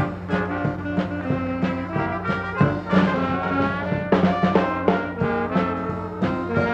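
Instrumental band music led by brass, with held notes over a steady beat.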